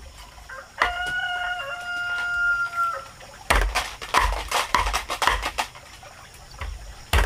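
A rooster crowing once, a long held call of about two seconds starting about a second in, followed by a run of sharp knocks and thuds between about three and a half and five and a half seconds in.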